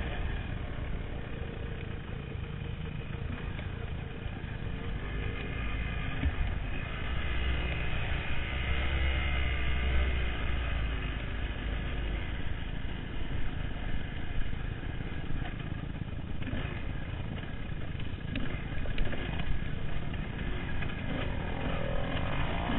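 Honda CR250 two-stroke dirt bike engine running and revving as it is ridden, the revs rising and falling through the gears, over a low rumble of wind on the microphone.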